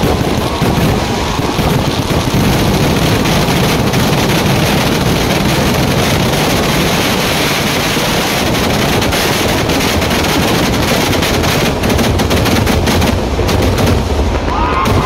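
Fireworks barrage (vedikettu): explosions so rapid and dense that they run together into one continuous crackle, thinning to separate bangs near the end.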